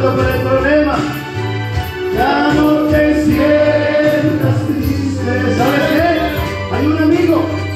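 A congregation singing a gospel worship song over amplified accompaniment with a steady bass line.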